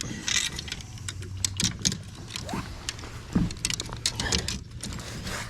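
Light clicks and rattles scattered irregularly throughout, over a faint low hum.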